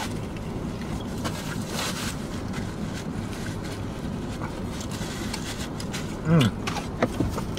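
A person chewing and eating a soft steak taco, with small mouth clicks and a brief rustle of a paper napkin about two seconds in, over a steady low hum in a car cabin. A short voiced 'mm'-like sound comes near the end.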